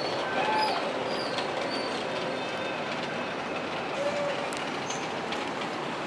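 Steady rushing background noise of an indoor penguin exhibit hall, with faint voices and a few short, high, rising-and-falling chirps over it.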